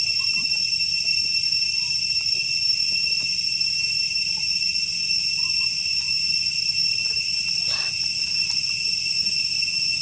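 Steady, high-pitched insect drone, one unbroken chorus of crickets or cicadas.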